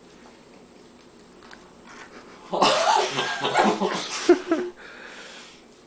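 Muffled laughing and garbled voices from mouths stuffed with marshmallows, loud for about two seconds from about two and a half seconds in.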